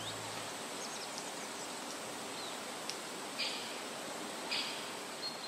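Woodland ambience: a steady background of outdoor noise with small birds chirping now and then, including two short buzzy calls around the middle. The tail of the background music fades out in the first half second.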